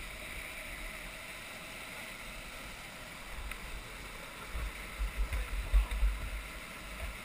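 Whitewater of a mountain stream rushing steadily down a rock cascade. In the second half, a run of low thumps rises over the water noise.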